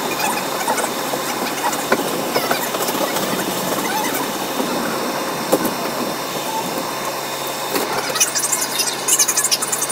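R62A subway car running at speed on elevated steel track: steady wheel-on-rail noise with frequent short clicks from the rails. Near the end comes a burst of high, scratchy squealing and crackling.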